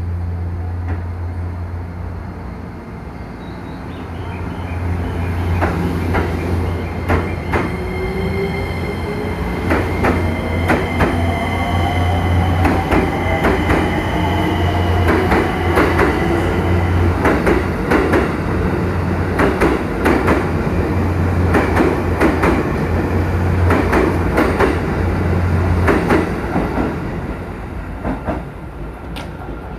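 JR East E257 series limited-express electric train pulling away and accelerating past, over a steady low hum. Its motors give a whine that rises slowly in pitch, and its wheels click over the rail joints in a quickening run. It gets louder as the train passes, then eases off near the end.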